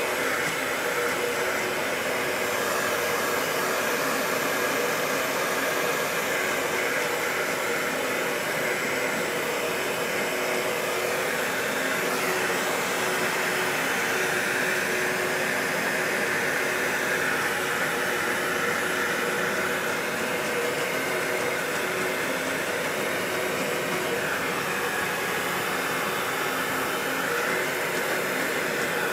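Heat gun running steadily, blowing hot air over a plastic bumper cover, its whine wavering slightly in pitch.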